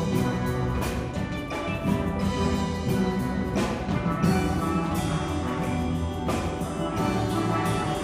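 Steel band playing: many steel pans striking and ringing notes together across high and bass ranges, with percussion underneath.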